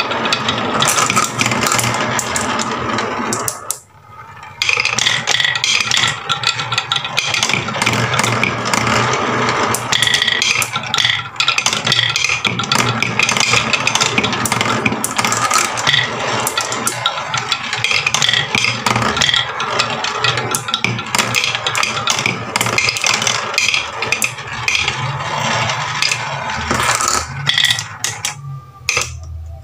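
Several marbles rolling and rattling along the wooden spiral tracks of a marble run, with many small clicks as they knock against the track walls and each other. There is a brief lull about four seconds in, and it thins out near the end.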